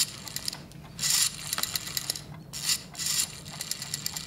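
Rotary telephone dial being turned and spinning back several times: short runs of ratcheting clicks as numbers are dialled.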